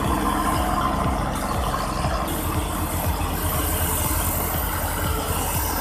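Bulldozer's diesel engine running steadily, a continuous low rumble.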